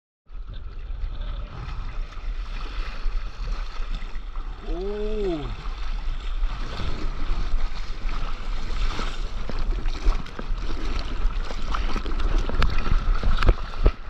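Sea water washing and splashing around a board on the waves, with wind rumbling on the microphone. About five seconds in, a short pitched sound rises and falls; sharp slaps and splashes come more often near the end.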